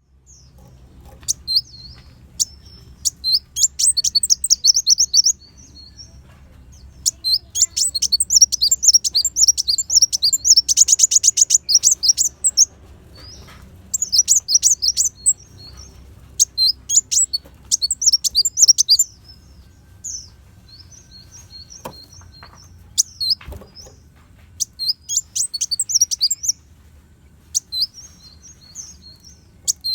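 Kolibri wulung sunbird singing in phrases of rapid, high, sharp chirps and trills with short pauses between them, including a dense buzzing rattle about eleven seconds in.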